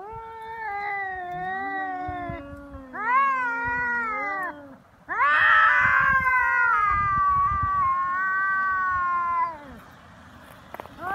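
Two stray tomcats caterwauling at each other in a standoff: long, wavering threat yowls, one voice low and one higher, overlapping at first. The loudest yowl starts about five seconds in and lasts some four seconds, then there is a short lull before another starts near the end.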